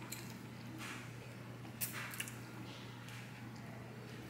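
Faint wet mouth sounds of eating a chicken wing: a few soft smacks and squishes, the clearest near two seconds in.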